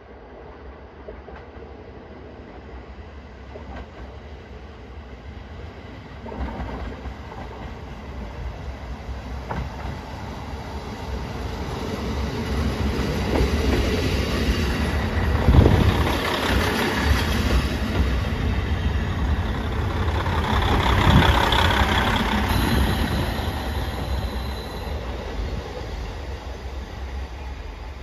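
A diesel railcar train approaching and moving by on the track: the sound builds over several seconds, is loudest around the middle, and fades away toward the end.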